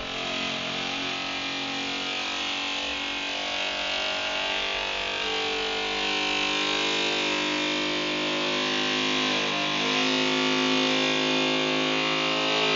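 Door creaking in one long, buzzing, pitched groan that shifts pitch about two-thirds of the way through, with a wobbling bass quality like dubstep.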